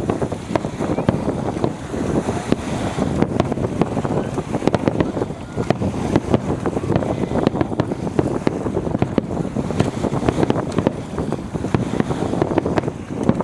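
Fireworks display with strong wind buffeting the microphone: a rumbling wind roar under a dense, continuous run of sharp crackles and pops from the fireworks.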